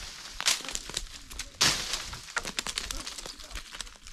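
A long wooden pole beating oak branches to knock acorns down: two strikes, each a loud rush of shaken leaves, followed by a scatter of many small clicks as acorns and twigs drop onto the dry, stony ground.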